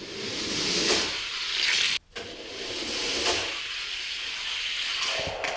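Die-cast 1/64 scale cars rolling fast down an orange plastic Hot Wheels track: a hissing rumble that swells and fades, cut off abruptly for a moment about two seconds in.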